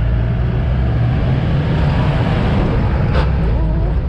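Old jeep's engine running steadily with a heavy low rumble as the vehicle drives, with one short click about three seconds in.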